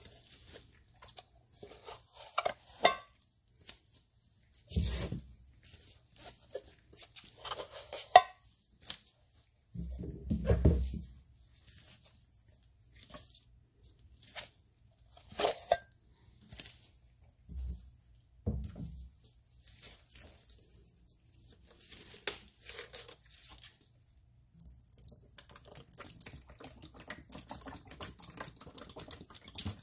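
Black nitrile-gloved fingers handling a cardboard Comet cleanser canister, making scattered scratching, tapping and tearing sounds. Near the end a yellow liquid cleaner, Citrus Fabuloso, pours in a steady stream onto sponges in a stainless steel sink.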